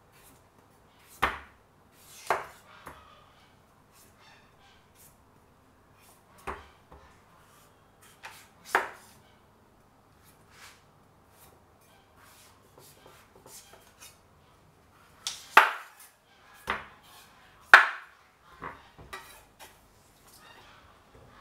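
Knife cutting food on a cutting board: single knocks at irregular intervals, with a few louder chops late on.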